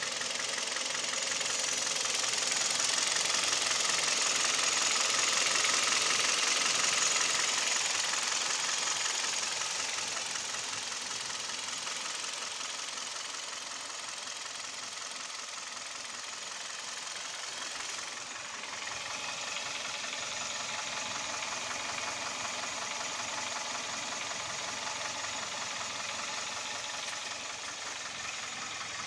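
Hyundai/Kia G4KD Theta II 2.0-litre four-cylinder engine running with a rapid knocking, which the owner takes for piston knock. It grows louder for a few seconds early on, then eases back and steadies.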